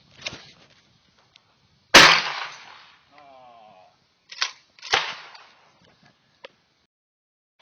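A single shotgun blast from a Remington 870 Express Magnum pump-action about two seconds in: a sharp report that dies away over about a second. Two sharper clacks follow about half a second apart.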